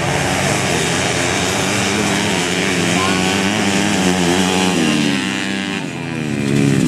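Underbone grasstrack motorcycle engine revving, its pitch wavering up and down. The revs drop a little before six seconds in, then climb again near the end.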